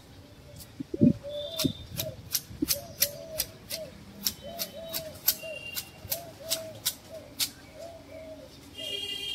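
Manual hedge shears snipping through a leafy shrub, a sharp click with each cut at about three cuts a second, stopping near the end. Behind it a bird calls over and over in a steady repeated phrase, and there is a low thump about a second in.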